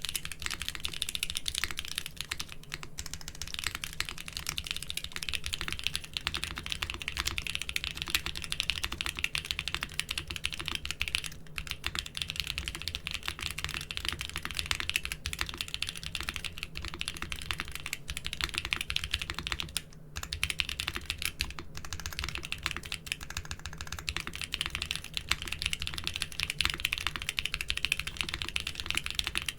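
Continuous fast typing on a mechanical keyboard with doubleshot keycaps: a dense stream of keystroke clacks, with a brief pause about two-thirds of the way through.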